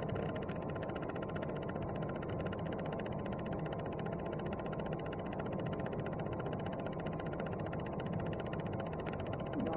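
Steady background noise with a faint constant tone: room tone, with no distinct events.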